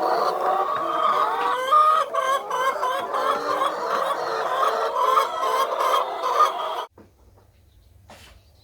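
A flock of chickens clucking and calling all together, many birds at once. The sound cuts off suddenly about seven seconds in, leaving a faint low hum.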